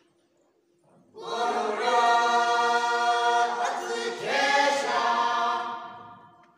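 A group of voices singing a folk song together unaccompanied, in long held notes. The singing starts about a second in; a second phrase slides up in pitch just past the middle and fades out near the end.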